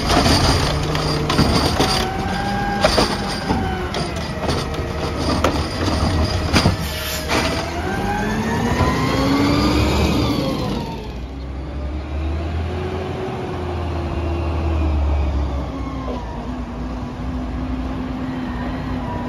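Peterbilt 320 McNeilus ZR automated side-loader garbage truck: repeated metallic clanks as the arm sets a cart down and retracts, over the engine and hydraulics rising and falling in pitch. Then the engine revs up as the truck pulls away, settling to a steadier, lower running note.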